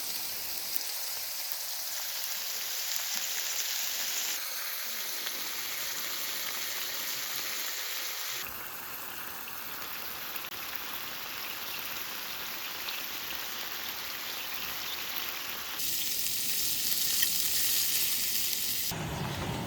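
Food sizzling as it fries in hot fat, a steady crackling hiss whose character changes abruptly several times, about 4, 8, 16 and 19 seconds in.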